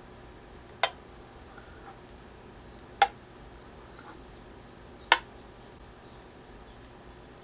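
Three sharp clicks about two seconds apart, over faint, high, repeated chirping in the background.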